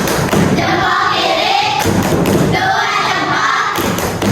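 Many children's voices at once in a classroom, a loud overlapping mix of chatter and sing-song, with a few thumps.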